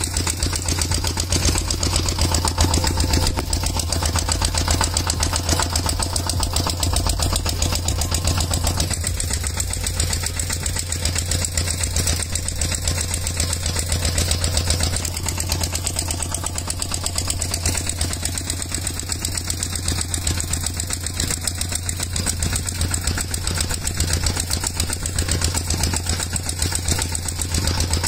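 Engine idling steadily with a fast, even chug.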